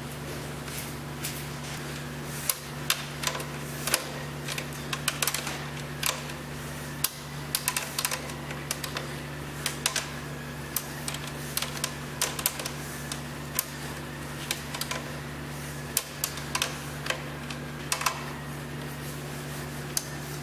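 Small socket ratchet clicking in short irregular runs while it tightens a half-inch nylock nut onto the seat spring's mounting bolt, over a steady low hum.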